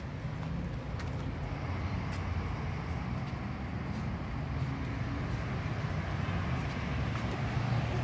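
Road traffic on a city street: a steady low vehicle engine rumble that grows slowly louder.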